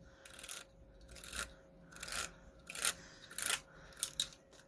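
Handheld paper crimper's ridged rollers crinkling a strip of trim as it is rolled through, in about six short strokes.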